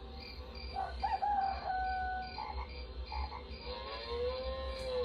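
Recorded country animal sounds: frogs croaking and crickets chirping in a steady high pulse, several short calls in the first half, and one long rising-then-falling call near the end.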